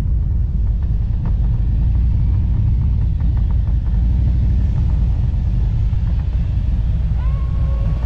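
Harley-Davidson Road Glide's V-twin engine running at low speed as the motorcycle rolls along: a steady, loud low rumble.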